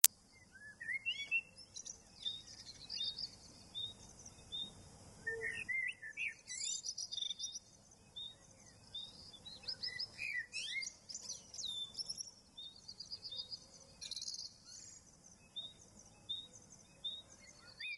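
Small birds chirping and singing: many short, high calls and quick trills, several overlapping at times.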